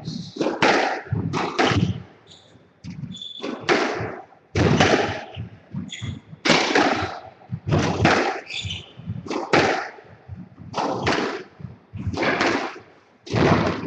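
Squash ball being struck by racquets and smacking off the court walls during a rally: a loud, echoing crack about once a second, sometimes two close together, with short high squeaks between shots.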